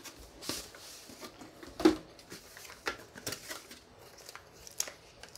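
Cardboard software box being handled and opened: the inner white cardboard tray slid out of its sleeve, with soft rustles and scrapes and one louder knock about two seconds in.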